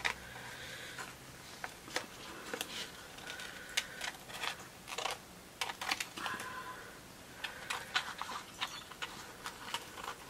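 Scissors snipping around printed flower shapes on a clear plastic sheet: a run of irregular sharp snips, with the plastic rustling as it is turned.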